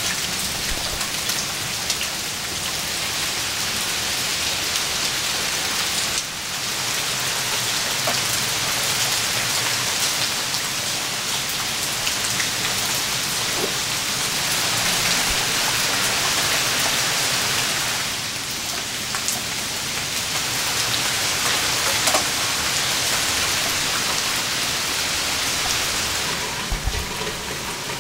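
Steady rain falling and splashing into puddles and onto the ground, with scattered louder drips. The hiss of the rain dips briefly about six seconds in and again around eighteen seconds.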